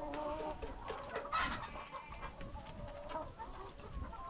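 A flock of Sasso F1 hens clucking and calling over one another, a busy chatter of short overlapping calls.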